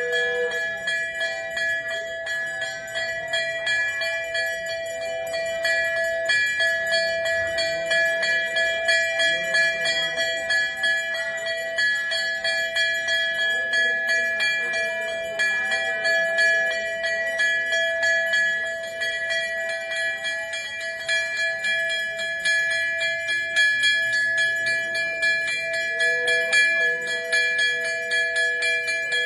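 Brass temple bells ringing continuously, struck rapidly over and over so that their tones hang on without a break.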